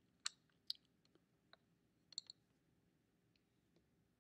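Near silence: room tone broken by a handful of faint, short clicks in the first two and a half seconds, the wet mouth and lip clicks of a man crying quietly.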